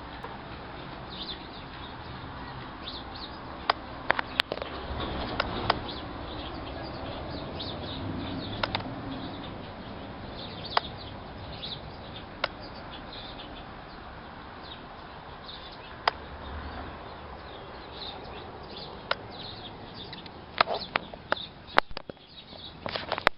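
Small birds chirping, with short high chirps scattered throughout over a steady outdoor background hum. About a dozen sharp clicks stand out above them, several clustered near the end.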